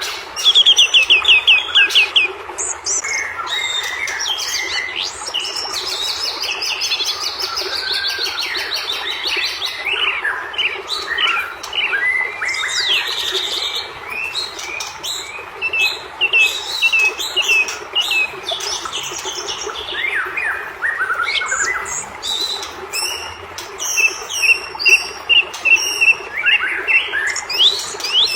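White-rumped shama (murai batu) singing a loud, varied song of fast trills, whistled glides and sharp repeated notes, phrase after phrase with only short gaps, over a steady low background noise.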